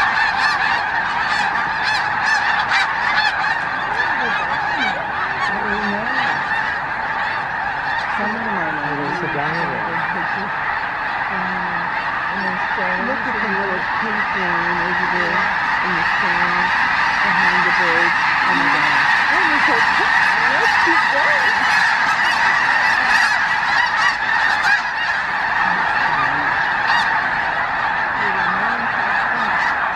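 A huge flock of snow geese calling together: a dense, continuous chorus of honking with no breaks.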